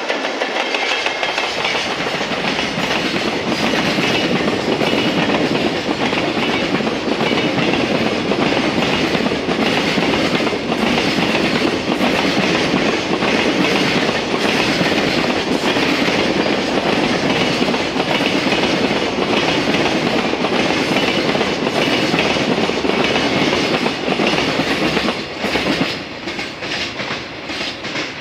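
Container freight train passing close by, its wagon wheels knocking over the rail joints in a steady rhythm. The noise drops and grows patchy near the end as the last wagons go by.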